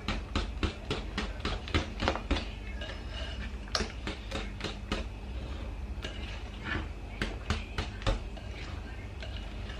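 Wire balloon whisk beating cake batter in a ceramic bowl, its wires clicking against the bowl's side about four times a second at first, then more irregularly.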